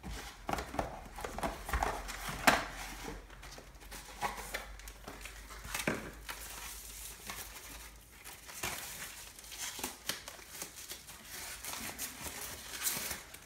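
A camera's white protective wrapping crinkling and rustling as it is handled and pulled off, with scattered light clicks and knocks of packaging.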